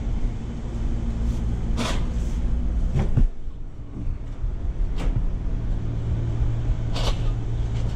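Scattered light metallic knocks and clanks from a shredded sheet-metal blower wheel being handled and moved, a handful of separate hits. Under them runs a steady low hum.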